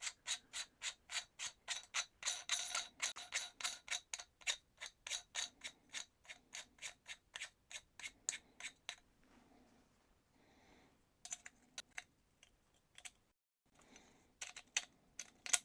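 A castle nut being spun by hand onto the threads of an AR buffer tube: an even run of light metallic clicks, about three or four a second, that stops about nine seconds in, followed by a few scattered clicks of parts being handled.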